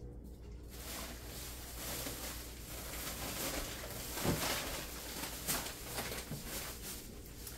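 Rustling and handling noises as shopping items are taken out, with a couple of soft knocks, the loudest about four seconds in and another about five and a half seconds in.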